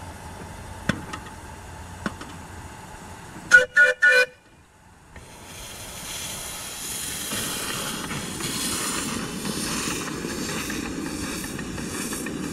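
Whistle of a coal-fired live steam model of a Long Island Rail Road H-10 2-8-0 blowing three short toots, the railroad signal for backing up. After a brief lull, a steady hiss of steam builds as the engine gets under way.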